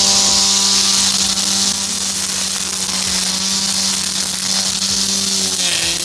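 Electric angle grinder fitted with nylon grass-trimmer cord, running steadily at full speed with a high hiss. Near the end its pitch dips briefly, as if under load.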